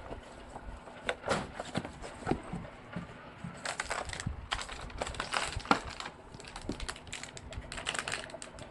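Paper brochures and leaflets being handled and shuffled: irregular rustling with light taps and clicks, one sharper tap near the middle.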